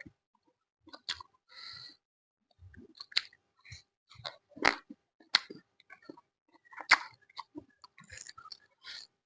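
A person chewing food, with wet mouth clicks and several sharp crunches, the loudest a little before 5 s and just before 7 s.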